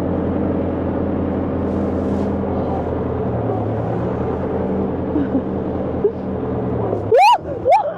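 International 785 tractor's diesel engine running steadily as the tractor is driven slowly, its note shifting about three seconds in. Near the end come two short, loud, high-pitched squeals.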